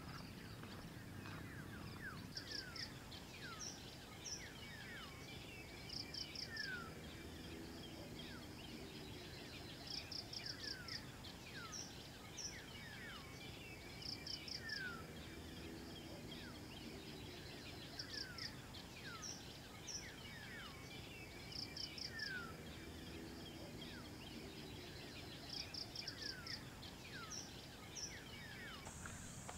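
Birds calling and chirping over a steady low background rumble, with a short run of rapid high ticks every few seconds and many quick falling whistle notes. A thin high buzz, like an insect, comes in at the very end.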